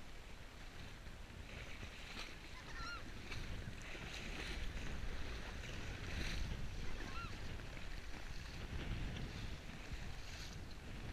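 Horse wading through shallow marsh water, its legs splashing at every stride, with a low wind rumble on the microphone. A short bird call sounds twice.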